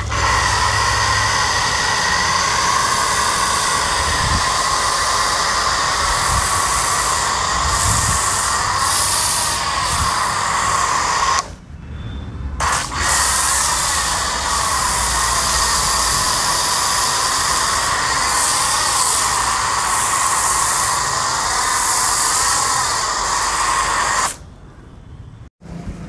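Pressure washer spraying through a foam cannon: a steady loud hiss, with the washer's induction-motor plunger pump running under it. The spray stops for about a second halfway through when the trigger is let go, then resumes, and cuts off again shortly before the end.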